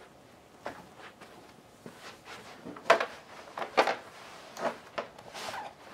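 Rustling of baby clothes and bedding with soft handling taps as a pacifier is put into a baby's mouth. The rustles and taps come irregularly, the loudest about three and four seconds in, with a longer rustle about five and a half seconds in.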